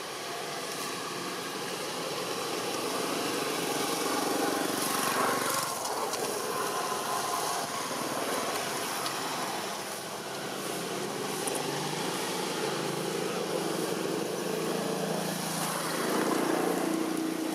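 Steady motor-vehicle engine noise from passing traffic, swelling louder twice, about four seconds in and again near the end.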